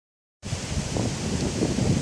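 Wind buffeting the microphone: irregular low rumbles over a steady hiss, starting suddenly a moment in.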